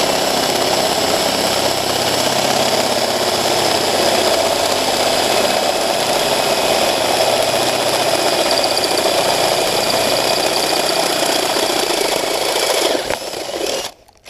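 Electric drill running steadily as a 3/8-inch bit bores out a hole in steel angle iron, cutting off shortly before the end.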